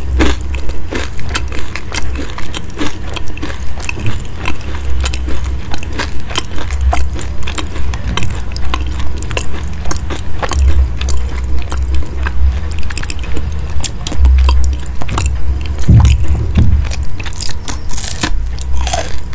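A person chewing a crusty, meat-filled baked pastry with the mouth close to the microphone: a steady rhythm of about two chews a second, crisp crunching clicks over dull jaw thumps. Near the end comes a fresh bite with louder crunches.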